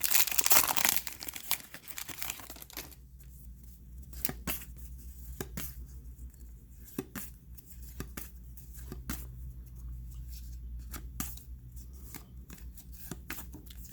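A trading-card pack wrapper torn and crinkled open for about the first second and a half, then cards handled and flipped through one by one, with short soft clicks and slides every second or so.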